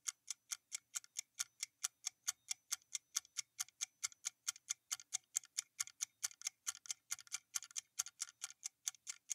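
Countdown timer's clock-tick sound effect: short, sharp ticks repeating evenly, about three to four a second, while the time to answer runs out.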